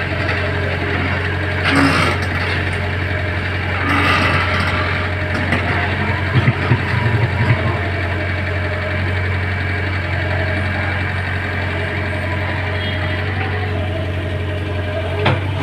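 Engine of road construction machinery running steadily with a constant low hum. There are brief louder noises about two and four seconds in, and a cluster of short knocks around six to seven seconds.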